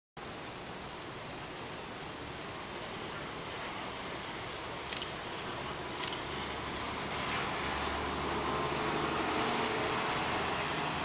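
City transit bus drawing near and passing close on wet pavement: engine running and tyres hissing, growing louder over the last few seconds. Underneath is a steady hiss, and two short clicks come about five and six seconds in.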